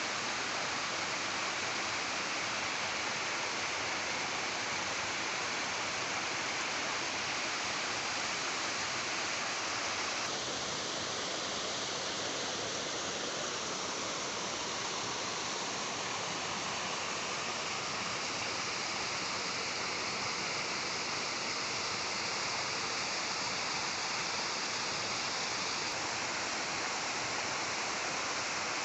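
Waterfall, a steady rush of falling water. The tone of the rush shifts slightly about ten seconds in.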